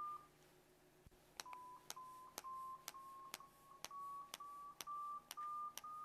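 Pro Adjuster chiropractic instrument taking a pre-treatment reading along the thoracic spine: a short beep at the start, then, from about a second and a half in, light mechanical taps about twice a second, each followed by a short beep that steps a little higher in pitch with every tap.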